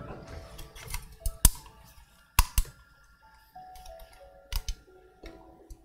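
A knife knocking sharply on a cutting board a few times while stew meat is cut into smaller pieces, the loudest knocks about a second and a half in and again near halfway, over quiet background music.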